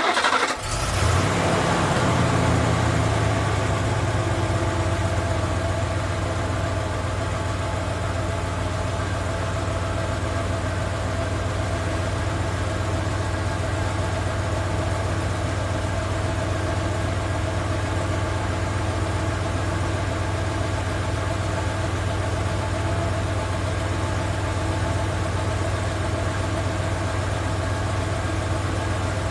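Car engine catching about half a second in, running a little faster for the first few seconds, then settling into a steady idle.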